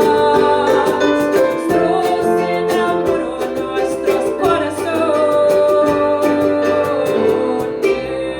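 A woman singing long held notes over a strummed acoustic string instrument.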